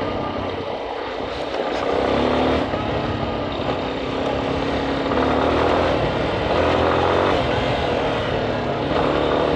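Yamaha Ténéré 250's single-cylinder four-stroke engine running under way, its pitch rising and falling a few times with the throttle, over steady wind and road noise.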